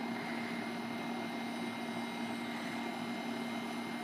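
Steady mechanical hum with one constant low tone and fainter high tones over a light noisy haze, unchanging throughout.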